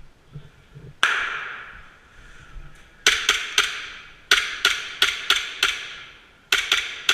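Airsoft gunfire: about a dozen sharp single shots, one and then quick groups of three to five, each leaving a short ringing echo.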